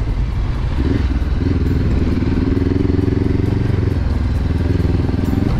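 Honda CB500X parallel-twin engine pulling along a dirt trail, revving up about a second in and then holding a steady note, over a constant low rumble.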